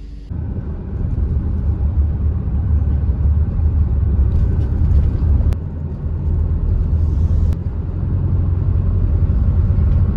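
Steady low rumble of a moving vehicle heard from on board, the running noise of the ride.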